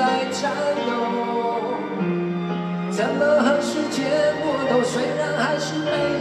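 Live pop band music with singing over it, long held notes, and cymbal crashes that come in about three seconds in.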